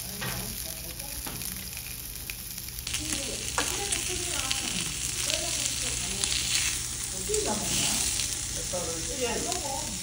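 Food sizzling as it cooks on a barbecue grill, a steady crackling hiss that grows louder about three seconds in.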